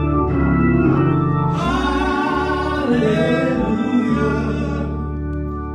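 Gospel praise song: voices sing a drawn-out response over organ and bass. The singing fades out near the end while the organ keeps playing.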